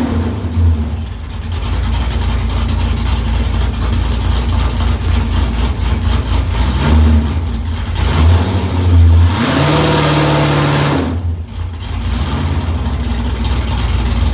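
LS V8 engine of a 2001 Corvette Z06 running with a loud, deep exhaust note, given a few short revs about seven to nine seconds in and a longer rev that rises and holds around ten seconds in before dropping back.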